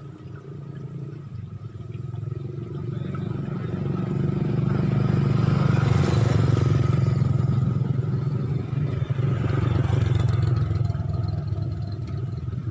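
A motor vehicle engine running close by, growing louder over the first few seconds, then fading slowly.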